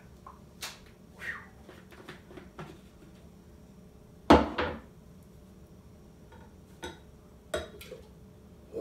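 Plastic clicks and knocks of a personal blender cup being unscrewed from its blade base and handled, with one loud double knock about four seconds in as a part is set down on the wooden counter.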